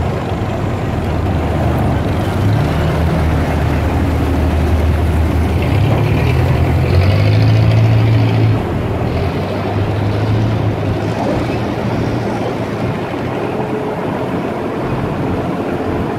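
Motorboat engine running steadily under way, a low drone over the rush of water and wind, swelling a little to about halfway and then easing off slightly.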